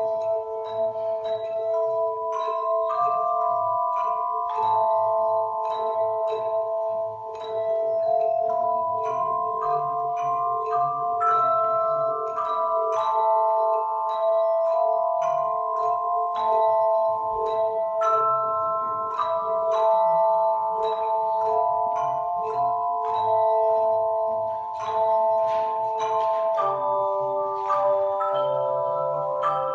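Bell choir playing a piece, many bells struck one after another in a steady rhythm, several notes ringing on together and overlapping.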